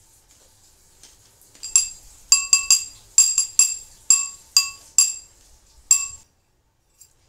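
Repeated clinking of glass or hard kitchenware: about ten sharp strikes at uneven intervals, each ringing with the same bright tone, starting just before two seconds in and stopping about six seconds in.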